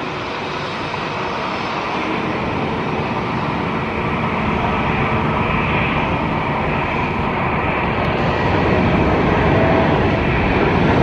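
Boeing 777-300ER's GE90 turbofan engines on final approach: a steady rushing jet noise with a faint whine, growing gradually louder as the airliner comes closer.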